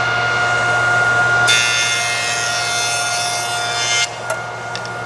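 Powermatic jointer running with a steady whine, its cutterhead cutting along the edge of a board fed through by push sticks from about one and a half seconds in until about four seconds in, when the cut stops suddenly. This is an edge-jointing pass.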